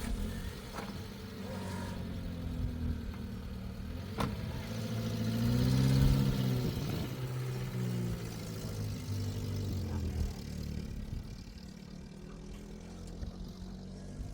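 A motor vehicle's engine running, growing louder to a peak about six seconds in and then easing back to a steady run.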